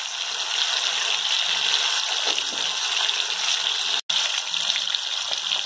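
Masala-coated chicken drumsticks deep-frying in hot oil in a kadai, a steady sizzle that cuts out for an instant about four seconds in.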